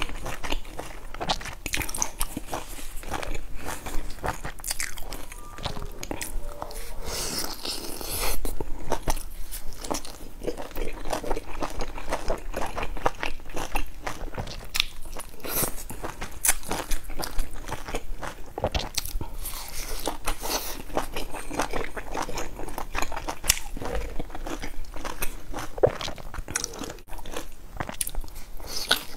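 Close-miked eating: biting into and chewing large pan-fried dumplings, with crunchy bites and many wet, irregular chewing clicks.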